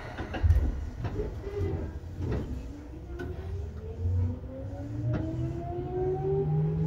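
Seibu 2000 series electric train pulling away: a run of clicks and knocks under the floor, then traction-motor whine that rises steadily in pitch from about two seconds in as the train accelerates.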